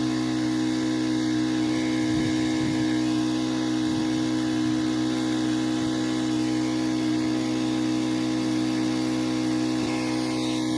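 Pressure washer's engine and pump running at a steady speed, with a hiss of spray.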